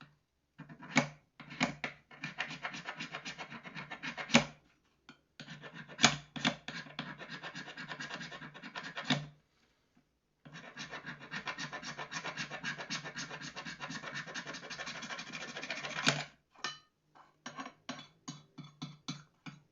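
A magnesium fire-starter bar being scraped in rapid repeated strokes, shaving off magnesium powder for tinder. The scraping comes in three long runs with short pauses between, then a few separate strokes near the end.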